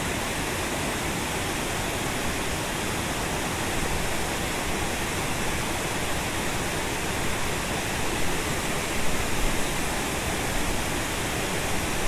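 Mountain stream rushing steadily, an even wash of water noise.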